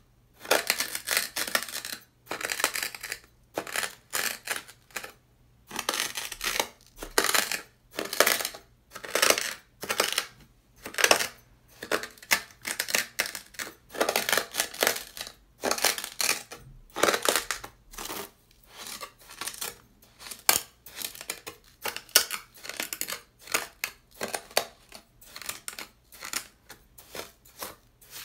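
Dry, coarse beach sand crunching and scraping under a metal knife blade dragged and pressed through it on sandpaper, in repeated separate strokes a little over one a second with short pauses between.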